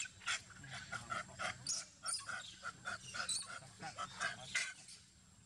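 Long-tailed macaques giving a rapid series of short, sharp calls, about two to four a second, with a faint steady high tone in the background.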